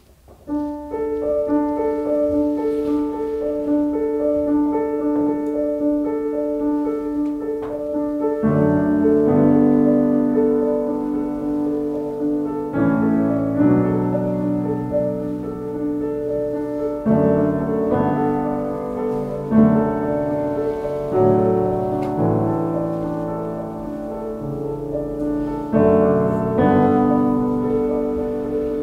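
Yamaha CFX concert grand piano played by hand, in a freely improvised passage. It opens with a light, repeated figure over held notes. About eight seconds in, fuller chords join low in the bass, and the harmony shifts every few seconds.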